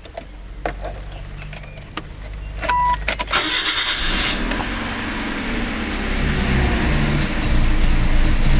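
Keys clicking in the ignition and a short beep, then a Mazda 323F's engine cranks and starts a little over three seconds in and settles into an idle with an uneven, pulsing beat: the rough idle the car has.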